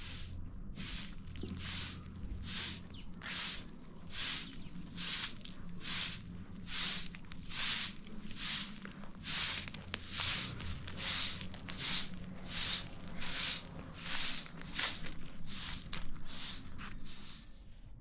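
Rhythmic swishing strokes, a little more than one a second, repeated about twenty times, growing louder toward the middle and fading near the end.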